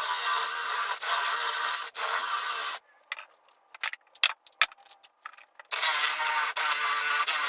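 A small power tool runs in two steady bursts of about three seconds each, starting and stopping abruptly. Between the bursts come light clicks and knocks of workpieces being handled.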